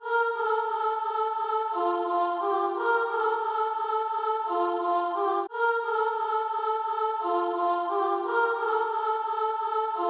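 Beat intro: sustained choir-like chords with no bass, a phrase of held notes changing every second or so, played twice with a short break about five and a half seconds in.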